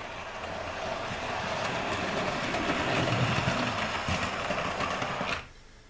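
Hornby K1 OO-gauge model locomotive running with a passenger train: the small electric motor whirs and the wheels rumble on the track, growing louder. About five and a half seconds in the sound cuts off suddenly as the locomotive makes a very abrupt stop.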